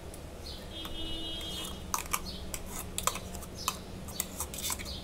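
A metal spoon clicking and scraping against a stainless steel mixer jar and bowl as thick chutney is scooped out, heard as a string of sharp irregular taps over a steady low hum. A brief high beep sounds about a second in.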